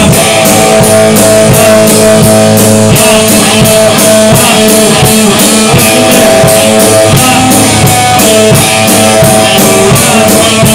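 Rock band playing loud: guitar holding sustained notes over a drum kit keeping a steady beat of about three hits a second.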